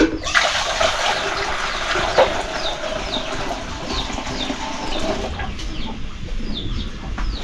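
Cloudy rice-rinsing water poured from an aluminium pot into an aluminium bucket: a steady splashing stream for about five seconds that stops near the end. Short high chirps repeat behind it.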